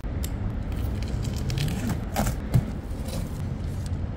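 Cardboard box flaps and styrofoam packing blocks being handled while a box is opened: scrapes, rustles and crackles, with one sharp knock about two and a half seconds in, over a steady low rumble.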